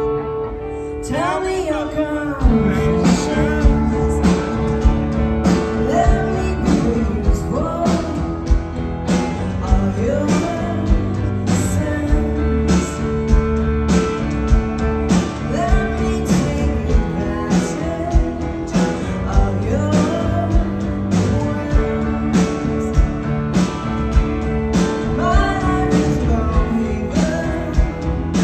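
Live indie rock band heard from the audience: electric guitars, bass and drums with a woman singing lead. The drums come in about two and a half seconds in, after a held guitar opening.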